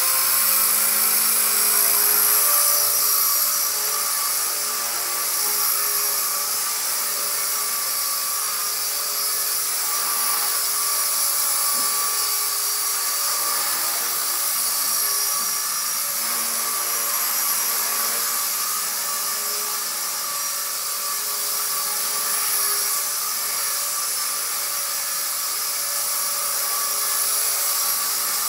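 Walkera V120D02S micro RC helicopter in flight: a steady, high-pitched electric motor whine with the buzz of the small rotors.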